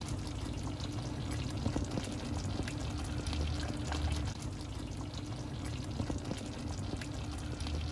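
Thick chicken caldereta sauce simmering in a wok, bubbling steadily with many small scattered pops.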